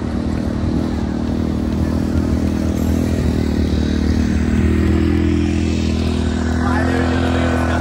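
Small vehicle engine running steadily under way, its note holding an even pitch, with wind and rattle mixed in.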